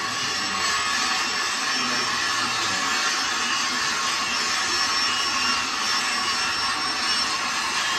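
Metal lathe running with a bladed forage harvester rotor spinning in its chuck: a steady whirring with a faint high whine.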